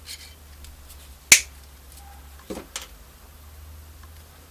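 Side cutters working at a spot-welded nickel tab on a Ni-Cd battery cell to pry it off. There is one sharp metallic snap about a second in, then two softer clicks about a second later.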